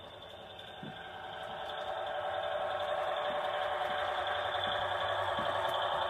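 HO scale model train approaching, its running noise growing louder over the first few seconds and then holding steady.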